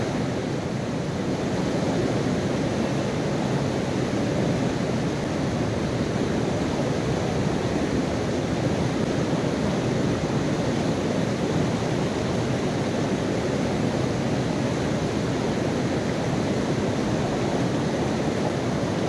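Lidder river's fast white-water rapids rushing over rocks: a steady, dense rush of water with no let-up.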